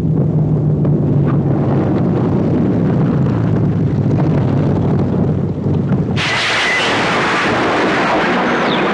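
Sound effects for a smoking warplane going down: a low rumbling drone, then about six seconds in a sudden loud, steady hiss that cuts in and holds.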